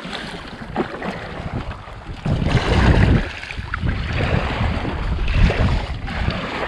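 Wind buffeting the microphone over water lapping and sloshing around a kayak, with a strong gust about two and a half seconds in.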